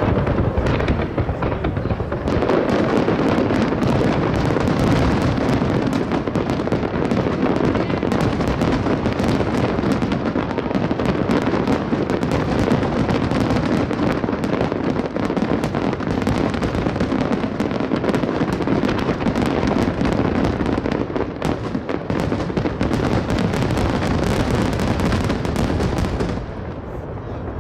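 Grand finale fireworks barrage: a dense, unbroken run of firework bursts and crackling. It eases off about 26 seconds in.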